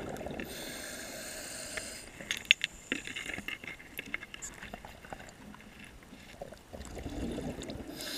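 Scuba diver breathing underwater through a regulator: a hissing inhalation from about half a second to two seconds in, then exhaled bubbles crackling and popping, with another low bubbling exhalation near the end.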